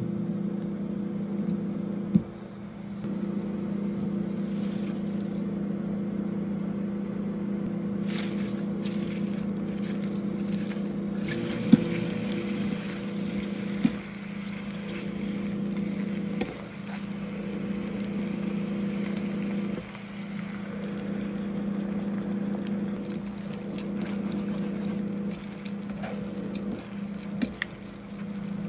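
Bacon and spinach frying in oil in a nonstick frying pan, with sizzling that is strongest a few seconds in. Tongs click and scrape against the pan now and then. A steady low mechanical hum runs underneath and is the loudest sound.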